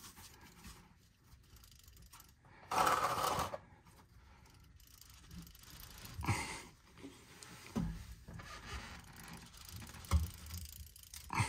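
Metal putty knife scraping and knocking against the rear differential cover of a Ford 10.5-inch axle as it is pried at the sealed gasket seam, the cover still stuck fast. One longer scrape comes about three seconds in, then a few scattered knocks.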